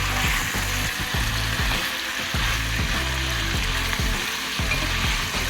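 Sliced beef sausages frying in a pan, sizzling steadily as they brown.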